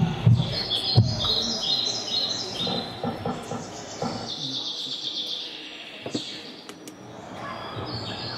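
Birds chirping in quick runs of short high notes that step down in pitch, heard from a film soundtrack over a hall's speakers. A few low thumps sound in the first second.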